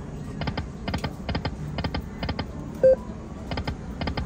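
Slot machine sound effects: clusters of quick ticking clicks repeating about twice a second, with one short bright tone about three seconds in, over a low steady background hum.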